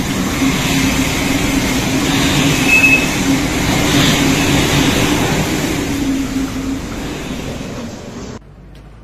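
Storm winds driving heavy rain, a loud steady rush of wind and rain with a low hum underneath. It cuts off abruptly about eight seconds in.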